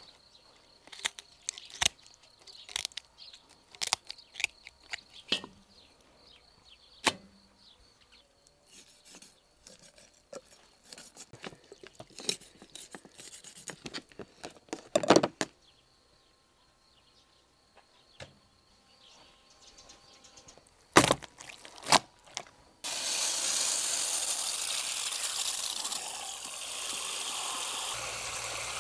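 A carp being cleaned with kitchen shears and a knife: scattered crisp snips and cuts, with a few louder knocks around the middle. About three quarters of the way in, these give way to a steady rush of water spraying from a shower head onto fish pieces in a cast-iron cauldron.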